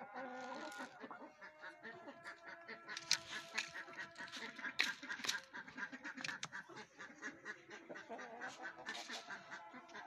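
Poultry calling in quick, repeated short notes, several a second, with a few sharp clicks around the middle that are the loudest sounds.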